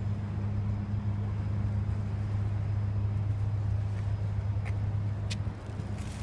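An engine running steadily with a low, even hum, easing off about five and a half seconds in.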